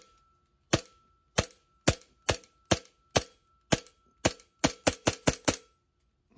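Green-gas blowback airsoft pistol (Glock 19X) fired semi-automatically, about thirteen sharp cracks that come faster toward the end. The light 0.12 g BBs hit a wine glass without breaking it.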